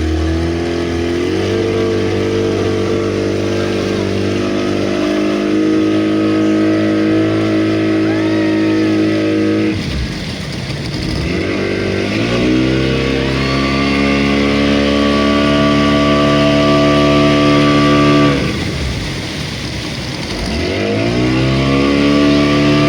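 Motorboat engine running steadily at speed. About ten seconds in, and again around eighteen seconds in, its pitch sinks as the throttle eases off, then climbs back up to speed.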